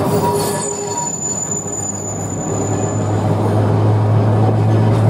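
Vintage electric tramcar running along its rails, heard from inside the open-sided wooden car: steady wheel-and-rail rumble with a thin, high wheel squeal over the first three seconds, and a steady low hum setting in about halfway.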